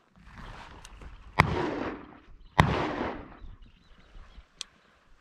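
A covey of Hungarian partridge flushing with a whir of wings, then two shotgun shots about a second apart, each echoing off briefly.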